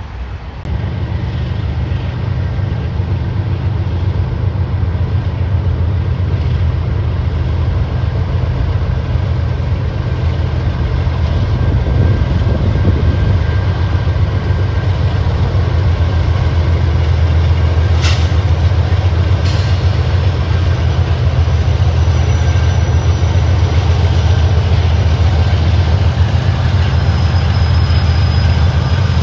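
Two CN diesel locomotives running past with a loud, steady low engine drone that slowly grows louder. Two sharp clanks about a second and a half apart come a little past the middle.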